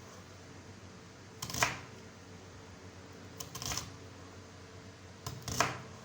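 Kitchen knife slicing through an onion and knocking on the cutting board: three separate cuts about two seconds apart, each a short crisp crunch and tap.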